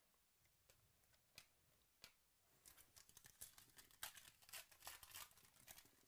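Faint tearing and crinkling of a foil trading card pack being ripped open by hand, starting about two and a half seconds in. Before that come a few light clicks of card handling.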